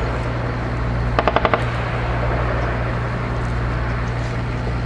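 A short, distant burst of automatic fire from a vehicle-mounted machine gun, about five rounds in half a second, a little over a second in, over a steady low rumble.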